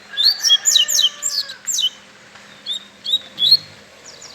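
Double-collared seedeater (coleiro) singing close up: a fast run of sharp, down-slurred high whistled notes for nearly two seconds, then a few scattered notes after a short pause.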